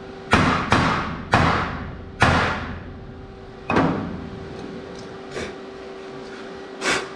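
Sharp metal-on-metal clanks from steel tubing, each ringing briefly: four in quick succession, then one more about four seconds in and another near the end, over a faint steady hum.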